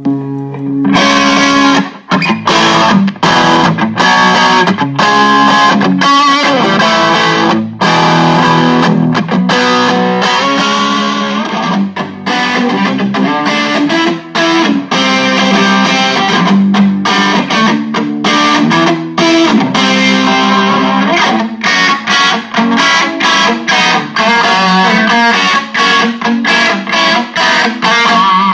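Epiphone Les Paul Special electric guitar played through a Marshall MG10 practice amp: a chord dies away at the start, then a busy riff begins about a second in and runs on with frequent short stops.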